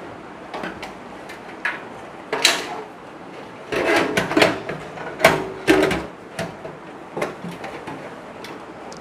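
Metal PC cabinet and power supply being handled as the power supply is fitted inside: scattered clicks and knocks, a scrape about two and a half seconds in, then a busy run of scraping and sharp knocks from about four to six seconds in.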